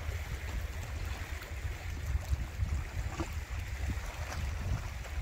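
Wind buffeting the microphone in a gusty low rumble, with small waves lapping against shoreline rocks.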